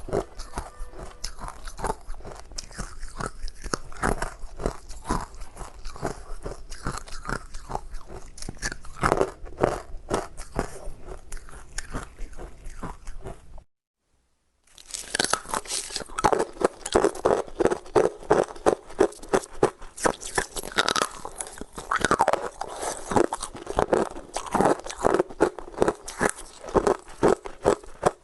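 Ice being bitten and chewed: rapid, dense crunching. It breaks off into a second of silence just before the middle, then resumes louder.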